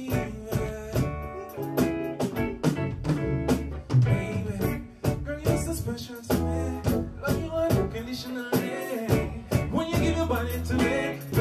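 Upbeat reggae-style music with a steady beat, guitar and a singing voice.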